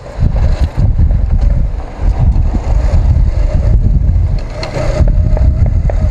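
Wind buffeting the microphone of a helmet-mounted action camera on a moving motorcycle, a heavy rumble that dips briefly twice, with the motorcycle engine running underneath as a faint steady hum.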